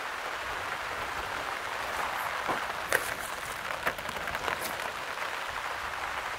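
Steady patter of rain falling on the field, with a few sharp clicks in the middle.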